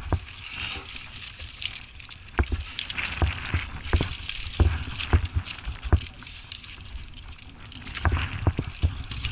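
Climbing gear on a trad climber's harness (carabiners and protection) jingling and clinking, with irregular knocks and scuffs of hands and shoes on granite as the climber moves up the crack.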